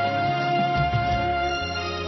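Instrumental interlude of a Hindi film song's karaoke backing track: a long held melody note over sustained chords and a steady bass line, with no singing.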